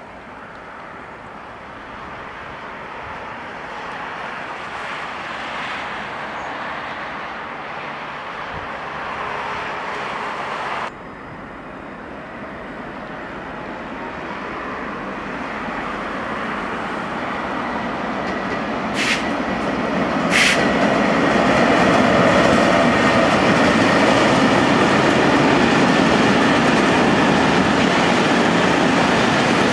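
A train drawing near, its sound growing steadily until it cuts off abruptly about a third of the way in. A freight train then approaches and its loaded covered goods wagons roll past close by: a loud, steady rumble of wheels on rails, with two sharp knocks just before it reaches full loudness.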